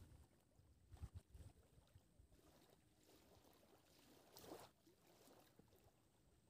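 Near silence, with a few faint low bumps about a second in and a faint brief noise about two-thirds of the way through.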